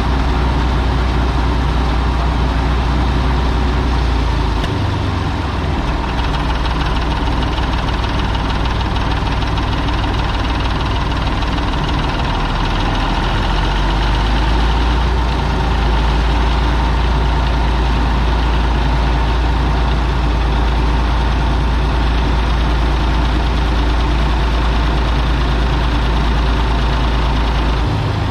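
An engine running steadily at idle, its speed shifting slightly a few times.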